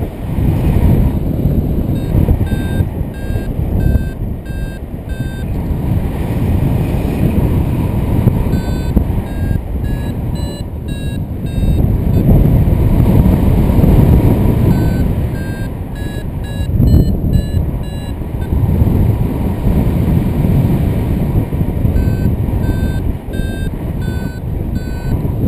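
Strong wind rushing over the microphone in paraglider flight, with a variometer beeping in four runs of short beeps, about two a second and slightly changing in pitch: the climb tone that signals rising air.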